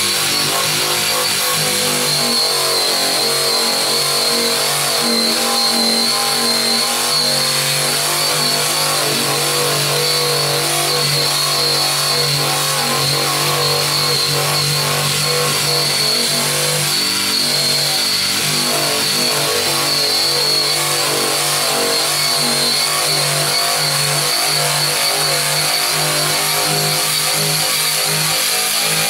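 Eastwood Contour SCT surface conditioning tool running steadily, its abrasive disc grinding paint off a car's sheet-metal trunk lid: a constant motor whine over a gritty hiss.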